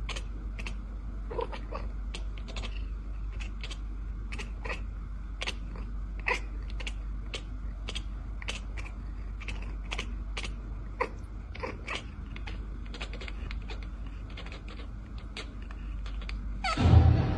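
A run of sharp, irregular clicks, two to four a second, with a few short, faint chirps from a long-haired cat. A loud thump comes near the end.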